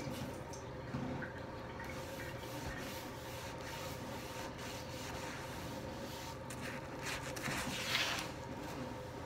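A damp sponge rubbing and wiping back and forth across a bathroom vanity countertop in uneven swishes, with the loudest scrubbing stroke near the end.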